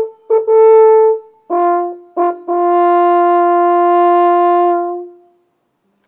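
Cornu ligneum, a wooden horn with a square-section bore, playing the last phrase of a tune: a few short notes, then a long, low held note that fades away near the end, closing the piece.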